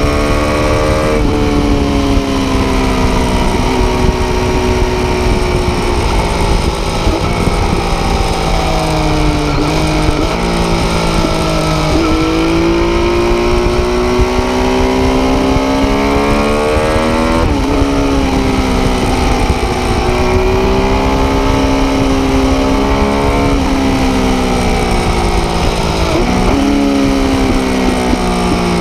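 Triumph Daytona 675 inline three-cylinder engine through an Arrow exhaust, running hard under way. Its pitch climbs and falls steadily, with several abrupt jumps in pitch, over a constant rushing hiss.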